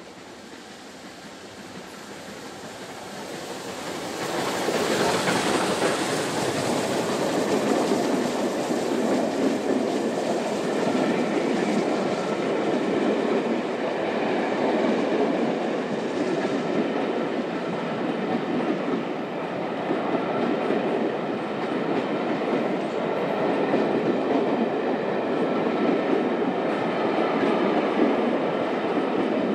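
Steam-hauled train of Pullman coaches behind the Merchant Navy class 4-6-2 locomotive 35028 Clan Line, approaching and passing close by. The sound swells and is loudest about five seconds in. It then becomes a steady rolling rumble with the clickety-clack of the coaches' wheels over the rail joints.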